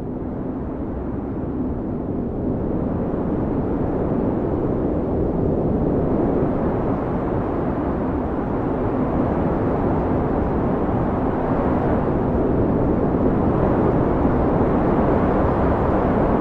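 Howling blizzard wind: a steady, low rush of noise that slowly grows louder over the first half and then holds.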